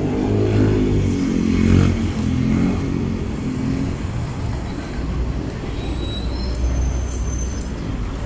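Street traffic: a motor vehicle's engine running close by, loudest about two seconds in, then fading into a low, steady rumble of traffic.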